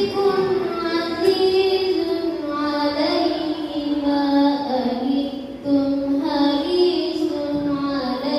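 A group of children singing a devotional sholawat chant together in unison, with long held notes that move slowly from pitch to pitch.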